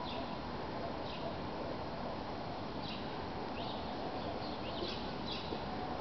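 Small songbirds chirping: short, high, falling notes at irregular intervals, more of them near the end, over a steady background hiss.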